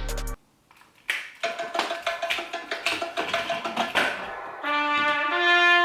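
Recorded music: one song cuts off abruptly, and after a moment of near silence a new song begins with sharp percussion clicks, then a horn melody enters near the end.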